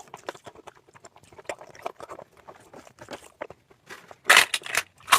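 A person eating close to the microphone: chewing with short, wet mouth clicks and smacks. A much louder, dense run of crackly clicks comes in about four seconds in.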